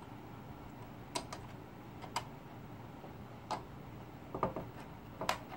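Scattered small clicks and knocks of wire connectors being pushed back into their sockets inside a Behringer PMP4000 powered mixer, with a quick run of clicks a little after four seconds.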